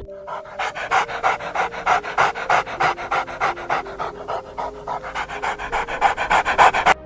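A dog panting rapidly, about seven or eight quick breaths a second, with faint background music underneath.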